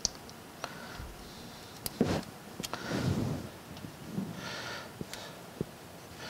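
Socket cap screws being backed out of a cast-iron gear housing cover with fingers and a hex key: scattered light metallic clicks and small scrapes, several of them around two seconds in.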